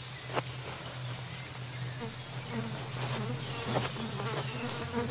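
Rainforest insect chorus: a steady high-pitched insect drone over a low steady buzz, with a few faint clicks or rustles.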